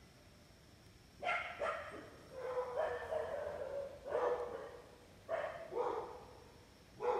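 A dog barking repeatedly, starting about a second in, with some barks short and some drawn out.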